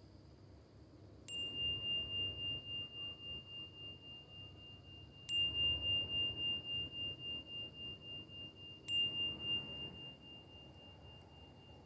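A Tibetan singing bowl struck three times, about four seconds apart. Each strike rings on as one high, clear tone that pulses as it slowly fades.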